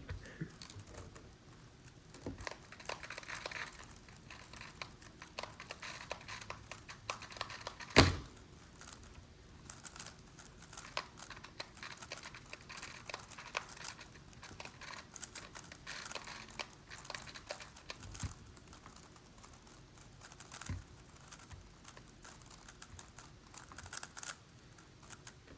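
Plastic megaminx puzzles being turned rapidly during a speedsolve: a dense, uneven stream of small clicks and clacks from the layers snapping round, with one sharp knock about eight seconds in.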